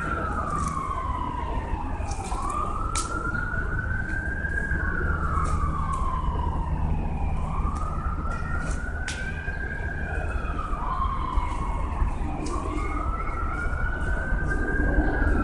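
An emergency vehicle siren wailing, its pitch slowly rising and falling about four times, over a steady low rumble.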